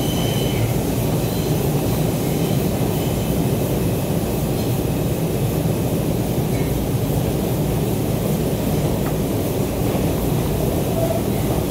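Steady rumble of an R142 subway car running along the track, heard from inside the car.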